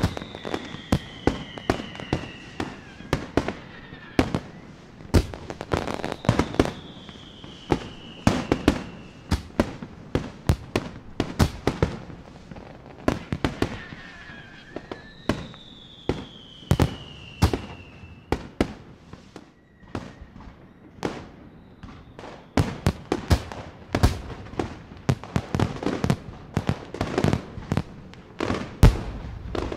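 Fireworks display: a rapid, irregular barrage of bangs from bursting shells, with three long whistles falling in pitch over it. It thins out briefly about two-thirds through, then builds again to a heavy bang near the end.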